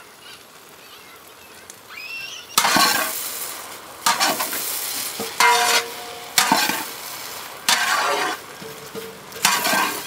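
Okra fry with egg and grated coconut sizzling in a large pot as it is stirred with a long wooden paddle. About two and a half seconds in the stirring starts: six strokes, each a burst of frying noise, roughly one every second and a quarter.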